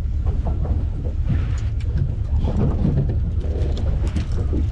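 Small fishing boat's motor running steadily at low speed, with wind buffeting the microphone.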